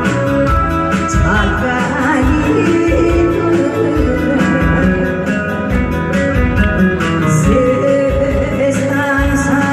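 A singer performing live over a recorded backing track with a steady beat and guitar.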